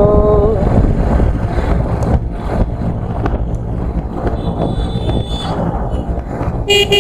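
Wind buffeting and road noise from a motorcycle being ridden at speed, a steady low rumble. A vehicle horn honks right at the end.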